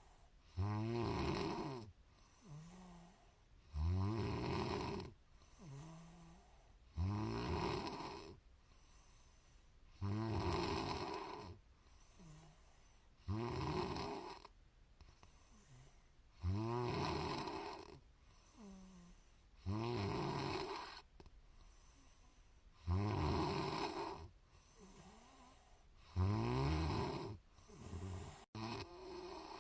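A woman snoring in her sleep: a loud snore about every three seconds, each lasting about a second and dropping in pitch, with a softer breath sound between them.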